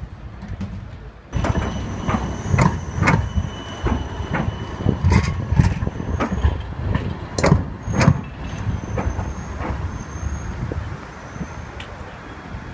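Siemens Combino low-floor tram rolling slowly over track switches and rail joints: its wheels give a run of sharp, irregular knocks over a low rumble, with a faint high wheel squeal. The sound starts abruptly about a second in.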